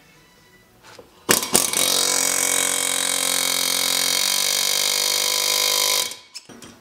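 Pneumatic air hammer with a driver rod running in one steady rapid rattle for about five seconds, driving a new spiral-ID valve guide into a cast-iron Pontiac 455 cylinder head. It starts with a few sharp knocks a little over a second in and stops abruptly near the end.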